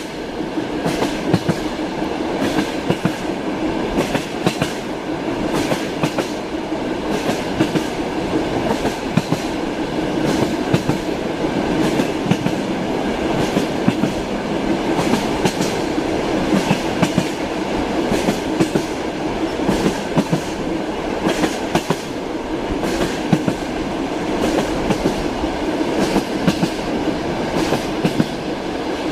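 Train wheels clacking over the rail joints, a steady rumble of the moving train with repeated sharp clicks.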